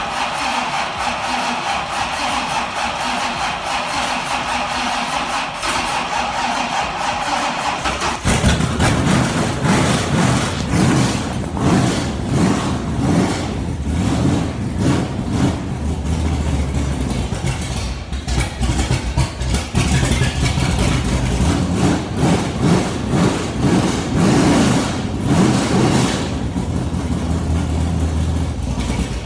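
The starter cranks the 408 Ford Cleveland V8 for about eight seconds with a steady whine. The engine then catches and runs roughly, with uneven revs rising and falling. It stops just before the end; it has not been started since sitting over winter.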